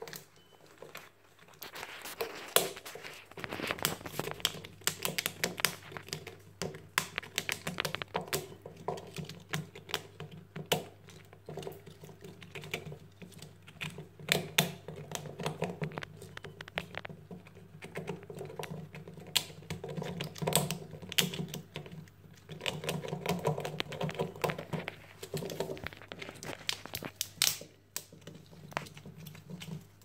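Grey squirrel gnawing a pine cone, stripping off its scales: a fast, irregular run of crunching clicks that keeps going, with short pauses between bouts.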